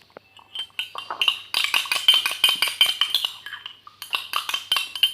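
Spoon stirring a liquid mixture, clinking rapidly against the sides of its vessel with a ringing tone, and a short pause about three and a half seconds in.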